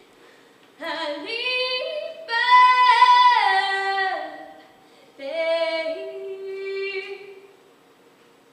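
A woman's solo voice, unaccompanied, singing two long wordless phrases that slide up and then back down in pitch, mimicking a cow's moo. The second phrase is shorter.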